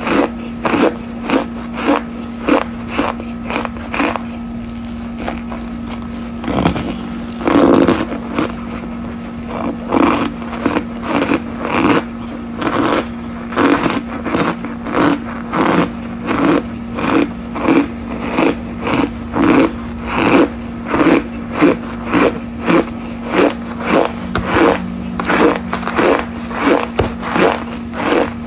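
Cornstarch powder being chewed: rhythmic crunching chews, about two a second, with a short pause about five seconds in.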